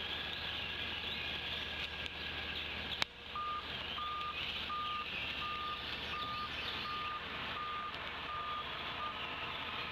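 A distant vehicle's reversing alarm: a string of about a dozen short, evenly spaced beeps at one pitch, about two a second, starting just after a sharp click about three seconds in. It sounds over a steady high outdoor hiss.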